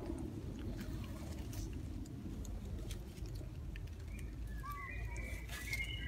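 Leaves and branches rustling and ticking as macaques climb through the tree canopy, over a steady low rumble. From about four seconds in, a few short, thin, high-pitched calls.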